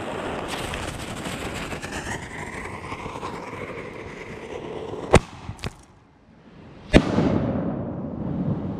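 Consumer artillery salute shells going off over wind noise on the microphone. A sharp bang comes about five seconds in, with two small pops after it. About two seconds later comes the loudest report, which trails off in a rumbling echo.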